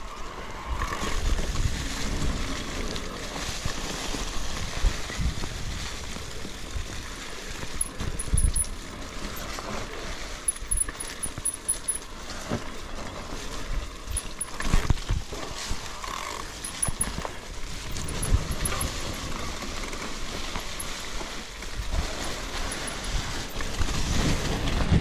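Wind rushing over a GoPro action camera's microphone while riding a bicycle, with gusty low buffeting and occasional knocks from bumps in the ride.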